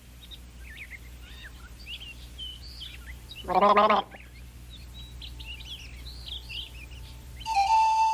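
Birds chirping and twittering in many short calls. A brief loud voice-like sound comes about three and a half seconds in, and near the end a steady whistled note starts.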